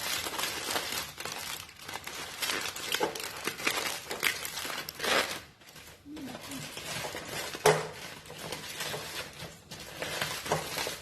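Aluminium foil crinkling and rustling in irregular bursts as it is folded and pressed around a springform cake pan, with one sharp knock about two thirds of the way through.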